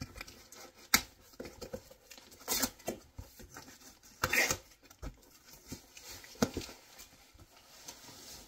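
Cardboard shipping box being opened by hand: scattered knocks and rustles of cardboard, a sharp tap about a second in, and two short tearing rasps around two and a half and four and a half seconds in.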